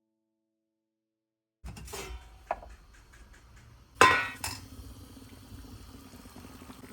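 Silence for the first second and a half, then dishes clinking and knocking, with a click a second later. About four seconds in comes the loudest sound, a sharp clank with a quick second strike that rings briefly, like a pot, lid or glass being set down hard.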